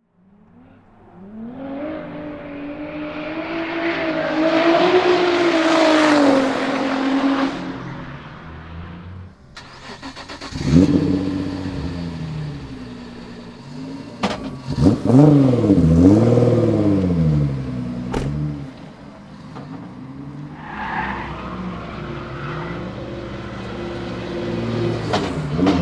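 Nissan VR38DETT twin-turbo V6 in a 200SX S13 drift car. The revs rise and fall over several seconds, then after an abrupt cut come sharp throttle blips, several quick rises and falls in pitch. Near the end the engine settles into a lower, uneven idle.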